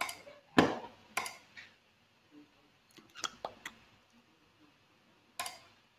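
Scattered computer mouse and keyboard clicks: single sharp clicks a second or so apart, a quick run of several about three seconds in, and one more near the end.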